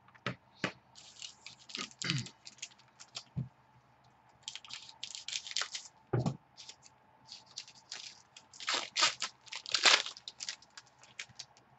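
Foil trading-card pack wrapper being torn open and crinkled by hand: a run of irregular crackling, rustling tears, loudest near the end.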